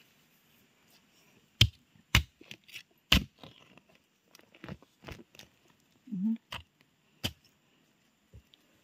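Irregular sharp knocks and scrapes from a metal digging rod jabbed into forest soil and hands brushing through dry leaf litter, while a termite mushroom is dug out.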